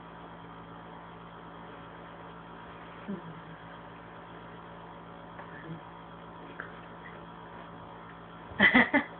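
Steady electrical hum with fixed pitch. Near the end a short, loud burst of a person's voice cuts in.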